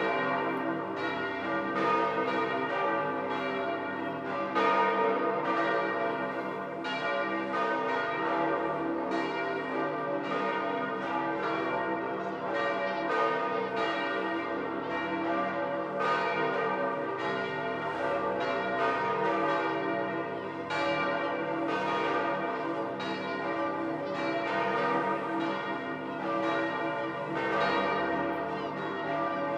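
The bells of St. Peter's Basilica ringing together in the grand peal that announces the election of a new pope. Many bells strike in overlapping, irregular strokes over a continuous ringing hum.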